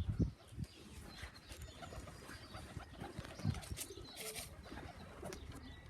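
Pigeons cooing, with louder low coos right at the start and about three and a half seconds in, and faint high chirps from other birds.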